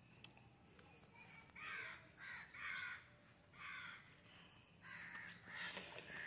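Crows cawing, about six short, faint caws spread over a few seconds, starting about a second and a half in.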